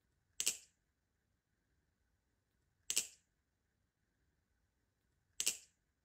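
Squid Industries Krake Raken V2.5 butterfly knife with a trainer blade clacking three times, evenly about two and a half seconds apart, as it is flipped through a repeating trick. Each short, sharp clack is the handles and blade knocking together.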